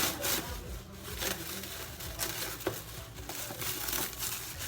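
Microwave popcorn packaging crinkling and rustling as it is handled, with a few light clicks and knocks.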